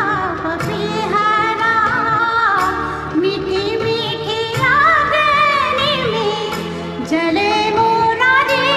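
Hindi film song sung live by a female singer with orchestral accompaniment, long held notes with vibrato and gliding ornaments.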